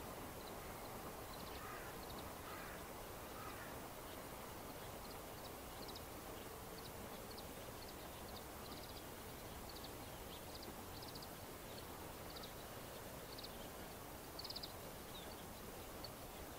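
Small birds giving short high chirps, roughly one or two a second, with a few lower calls early on and one louder chirp near the end, over a faint steady outdoor hiss.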